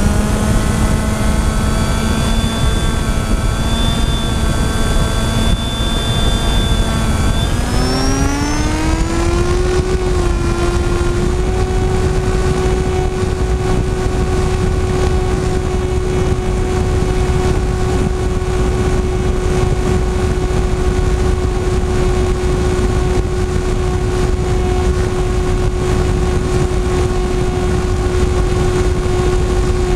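FPV model aircraft's motor and propeller whining steadily, heard from on board over a constant rush of air. About a quarter of the way in the pitch glides up over a few seconds as the throttle is raised, then holds at the higher pitch.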